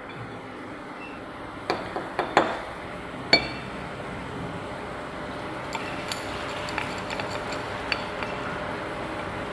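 A stirring rod clinking against the crucible and cup of a mini induction melting furnace: a quick run of about five sharp knocks around two to three seconds in, then lighter scattered ticks, over a steady background hum.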